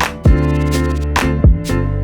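Background music with a steady drum beat, bass and sustained pitched instruments.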